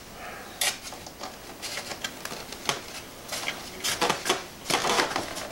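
Irregular light clicks, taps and scraping of hands working small retaining pins back into the plastic and foam fittings of an RC biplane's wing, the taps busier in the second half.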